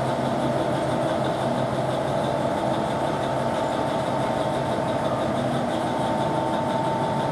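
A railway vehicle's engine idling steadily, with a constant high whine over the running.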